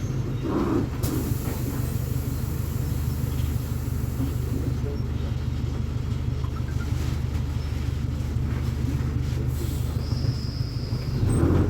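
Volkswagen VolksBus 9.160 OD diesel bus engine running with a steady low hum, growing louder about a second before the end as it picks up revs.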